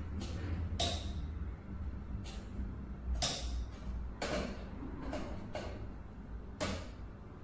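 A screwdriver working the screws of a plastic-and-metal consumer unit (circuit-breaker box): about seven sharp clicks and scrapes, irregularly spaced, over a steady low hum.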